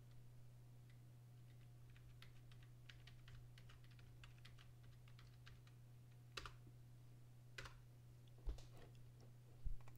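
Computer keyboard being typed on, faintly: a quick run of soft keystrokes, then four louder, spaced clicks in the last few seconds, over a steady low hum.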